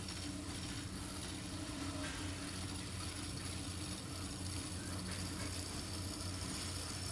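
Belt-driven wood lathe running with a steady hum while a long hand-held turning tool cuts into the spinning wooden piece, adding a continuous rough hiss of cutting.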